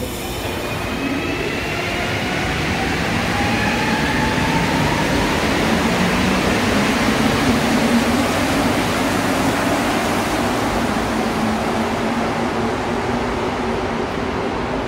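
Azur MPM-10 rubber-tired metro train pulling out of the station: its traction motors whine, rising in pitch as it accelerates, over a rushing noise that builds to its loudest about halfway through and then eases as the last cars pass.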